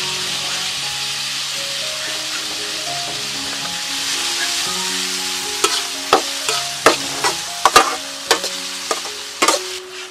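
Meat sizzling in hot oil in a wok, a steady hiss. In the second half a metal ladle stirs it, striking and scraping the wok in a run of sharp clinks.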